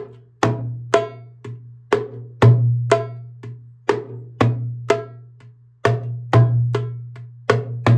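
Darbuka played in a steady practice exercise cycling through its four basic strokes (bass, high, medium, slap), about two strokes a second. The deep ringing bass opens each four-stroke cycle, about every two seconds, and the sharper, drier strokes follow.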